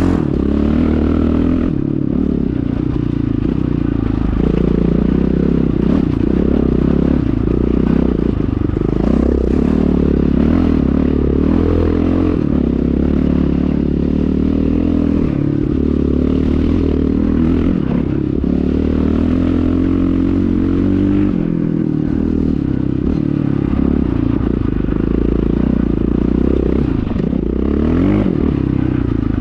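KTM 620 LC4's single-cylinder four-stroke engine running through an Akrapovic exhaust, its engine speed rising and falling gently a few times.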